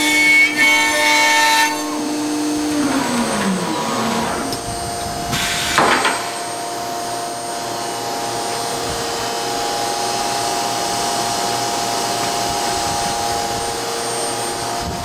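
Weeke Optimat BHC Venture 2.5 CNC machining centre running: a high whine stops early on, and a spindle tone slides down in pitch as it winds down about three seconds in. A brief noisy burst comes about six seconds in, then a steady machine drone carries on.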